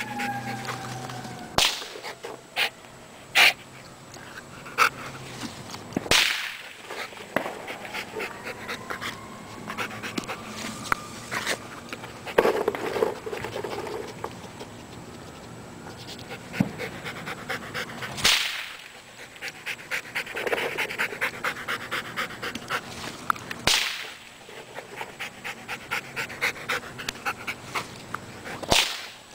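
Dog panting hard in a quick, steady rhythm, broken by about eight sharp cracks of firecrackers going off, bunched in the first few seconds and then spread several seconds apart.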